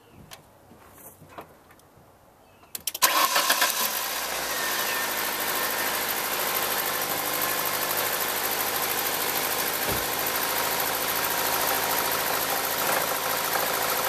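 Ford 1.9-litre four-cylinder engine cranked and started about three seconds in, flaring up briefly and then settling into a steady idle. At idle it has a little knock or rapping from the bottom end, which the mechanic traces to number one cylinder and takes for most likely a rod bearing or piston fault.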